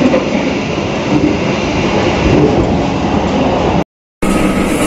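Steady rumble and rattle of a moving passenger train, heard from inside the carriage by the connecting doors. The sound cuts out for a moment near the end, then the running noise resumes.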